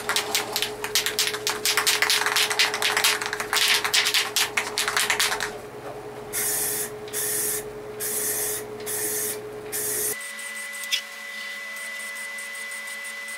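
Aerosol can of primer shaken hard, its mixing ball rattling rapidly for about five seconds, then five short hissing bursts of spray. Near the end the sound cuts to a quieter steady background with a faint high whine.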